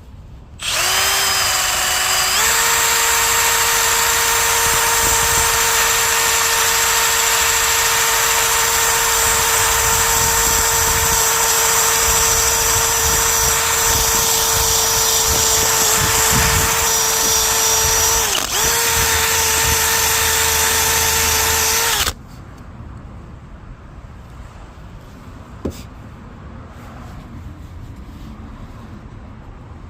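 Handheld electric power tool of the drill type running, used to rub scuff marks off a boat hull. It spins up with a rising whine over its first couple of seconds, runs at a steady high whine with a brief dip under load near the end, then cuts off suddenly.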